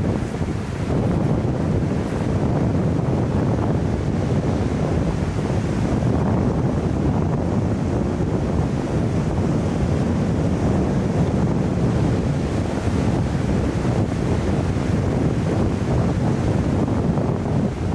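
Steady rushing noise, heaviest in the low end, with no distinct events.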